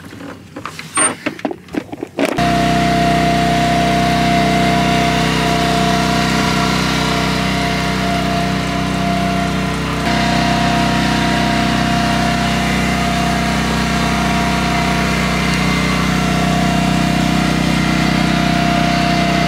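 Anchor and line going over the side with a splash and some clinks. About two seconds in, a boat engine starts to be heard, running steadily as a low drone with a held higher whine over it.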